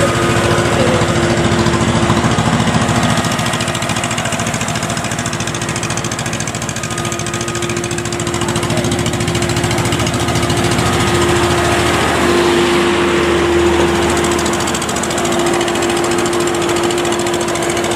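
Combine harvester's diesel engine running steadily, with a constant hum. It eases slightly partway through and picks up again.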